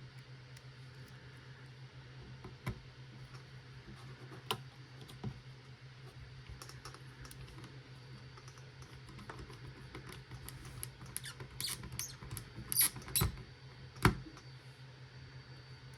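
Scattered small clicks and taps of hard plastic and metal parts being handled while a compact mini PC is taken apart. They come thicker about ten seconds in, with one sharp click near the end, over a low steady hum.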